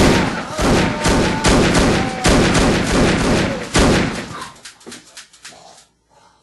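Rapid pistol gunfire, a long string of shots about two a second, then fainter scattered cracks that die away about six seconds in.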